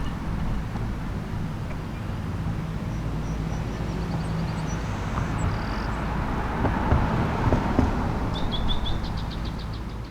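Small birds chirping, with a quick run of repeated chirps near the end, over a steady low outdoor rumble.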